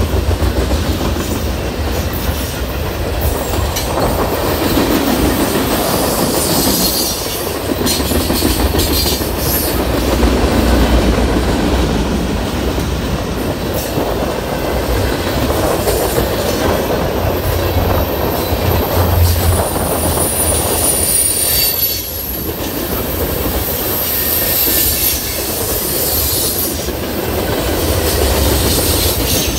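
Freight train cars rolling past on steel rails, with high-pitched wheel squeal rising above the steady rumble at times, most clearly from about 17 to 21 seconds in.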